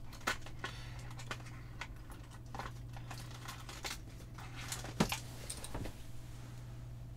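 Scattered clicks, knocks and light rustling of parts and packaging being handled while searching for a replacement LED driver, with two louder knocks, one near the start and one about five seconds in. A steady low hum runs underneath.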